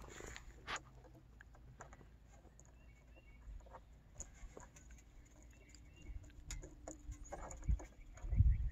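Quiet outdoor ambience with scattered faint clicks and taps of hand work on a street light's mounting bracket. Small bird chirps come now and then, and a low rumble rises near the end.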